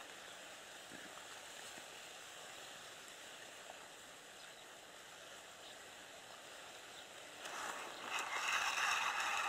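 Faint lapping of small waves on a lake, then about seven and a half seconds in a louder rush of noise that lasts about two seconds as the float goes under on a bite.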